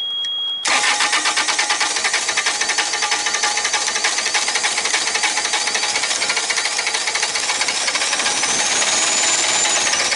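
The small diesel engine of a Carrier 1550 trailer refrigeration unit being cranked by its starter, a fast, steady mechanical rapping, without catching: air is still in the fuel system after running out of fuel. A steady high beep ends about half a second in, as the cranking begins.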